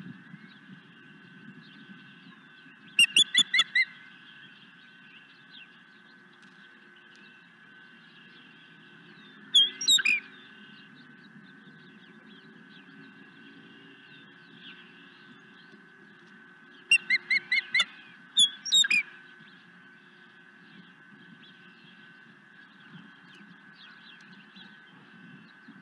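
Osprey calling in series of short, high whistled chirps: a quick run of five or six about three seconds in, two or three near ten seconds, then two more runs close together around seventeen and eighteen seconds. A steady faint hum and a low rumble lie underneath.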